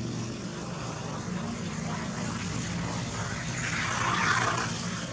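Steady low hum of an engine running, over a background of outdoor noise, with a brief swell of hissing noise about four seconds in.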